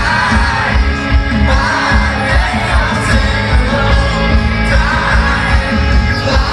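Rock band playing live and loud through a concert PA, a male singer's vocals over electric guitars, bass and drums, heard from the crowd.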